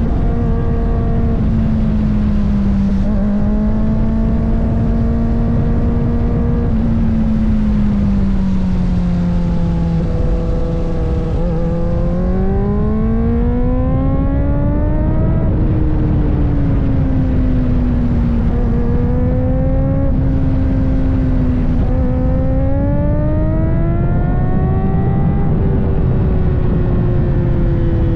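Kawasaki ZX-4RR's 399 cc inline-four engine under way on the road, its pitch holding steady, easing down, then rising and falling smoothly with the throttle, over a steady low rush.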